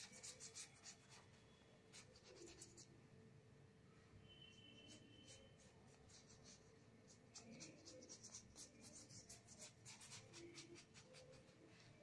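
Faint paintbrush strokes on paper: quick, dry-sounding brushing and scratching in two spells, one at the start and one in the second half.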